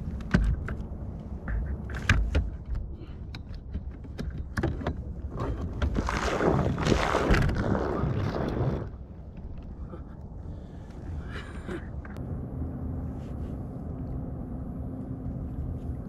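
Knocks and clatter of gear on a plastic fishing kayak while a caught smallmouth bass is handled, two sharp knocks loudest near the start. About six seconds in comes a rushing splash of water lasting about three seconds. From about twelve seconds in a steady low motor hum sets in.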